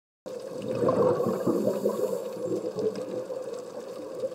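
Underwater audio picked up by an iPhone sealed in a waterproof dive housing: muffled water noise with irregular bubbling and crackling over a steady hum. It cuts in suddenly a moment in and is strongest in the first two seconds.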